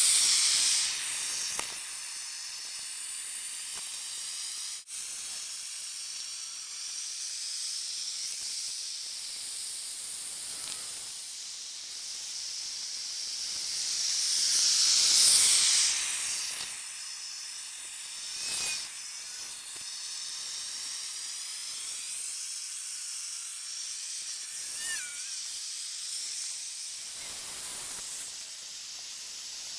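Propane burner of an ice resurfacer hissing steadily as it melts the rink surface. The hiss swells louder at the start and again about halfway through, with two brief high squeaks later on.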